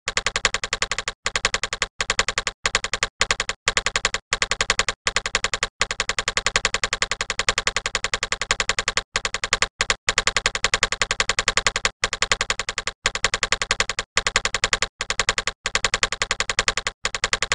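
Typing sound effect: rapid key clicks in quick runs broken by brief pauses, keeping time with text appearing letter by letter.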